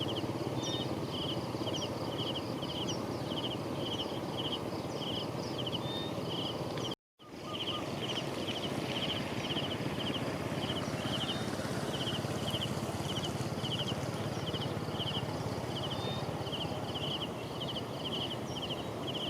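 Steady rhythmic chirping from a small calling animal, in short trilled pulses about twice a second, over a constant rushing noise. The sound cuts out completely for a moment about seven seconds in.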